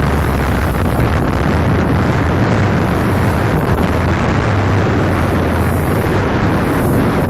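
Strong sea wind buffeting the microphone: a loud, steady, rumbling roar with no break.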